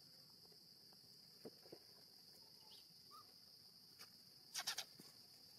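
Faint, steady, high insect drone in the background, with a few soft short clicks, the loudest a quick cluster of about three about four and a half seconds in.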